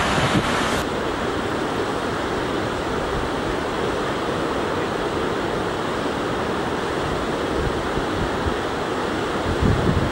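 River rapids rushing steadily, an even wash of water noise with no breaks.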